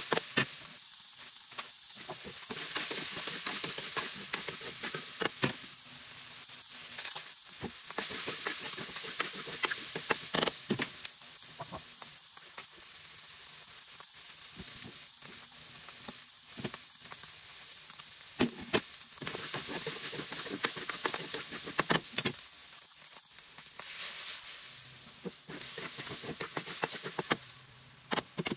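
Meat pieces, garlic and onion sizzling in a hot aluminium wok, stir-fried with a metal spatula that clinks and scrapes against the pan. The hiss swells louder in stretches, with scattered sharp clicks.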